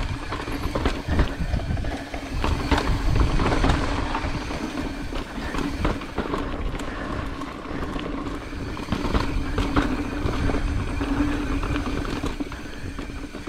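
Mountain bike ridden over rough dirt and rock trail: tyres rolling and the bike rattling, with many short knocks and clatters, and a low rumble of wind on the mic.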